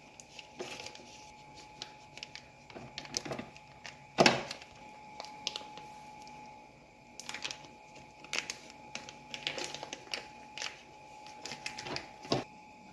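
Plastic food wrapper rustling and crinkling with scattered clicks as cream cheese is squeezed out of it into a stainless-steel mixer bowl, with one louder knock about four seconds in. A faint steady hum runs underneath.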